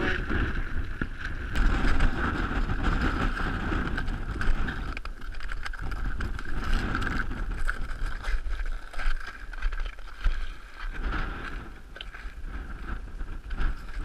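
High wind buffeting the microphone on an exposed mountain ridge: a gusty low rumble with a steady higher whine on top, easing somewhat for a few seconds past the middle.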